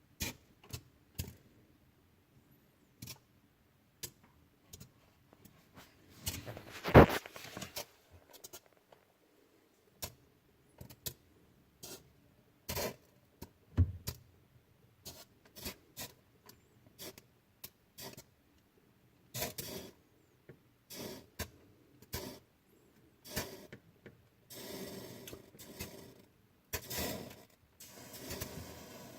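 Scattered clicks, knocks and scrapes with quiet gaps between them, the loudest a single knock about seven seconds in, and a stretch of rustling near the end.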